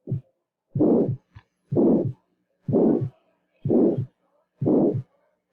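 Recorded heartbeat with a systolic murmur: five beats about a second apart. In each beat the murmur fills the gap between the first and second heart sounds, largely masking S1 and ending at S2.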